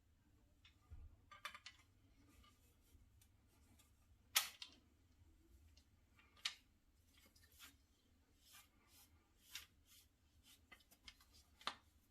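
Scattered faint clicks and light knocks of equipment being handled, irregularly spaced, the sharpest about four and a half seconds in; between them near silence.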